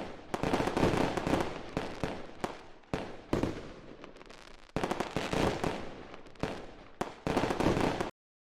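Runs of sharp crackling and popping noise, several bursts separated by short lulls, cutting off abruptly near the end.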